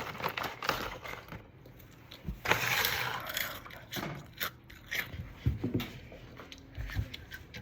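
Close-up ASMR noises: scattered taps, scrapes and crunches made by hand near the microphone, with a longer rustle about two and a half seconds in.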